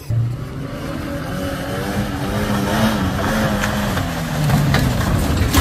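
A vehicle engine revving hard under load. Its pitch climbs over the first few seconds, wavers, then eases back. A sharp knock comes right at the end.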